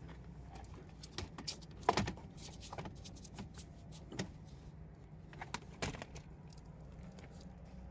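Scattered light clicks and knocks of handling, the loudest about two seconds in and again near six seconds, over a low steady hum.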